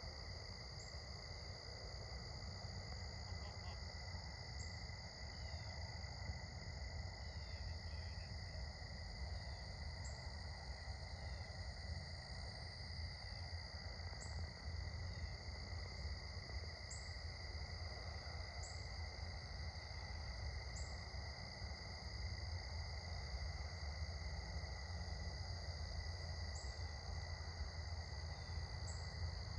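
Crickets trilling in a steady, unbroken evening chorus, with a faint high tick about every two seconds and a low rumble underneath.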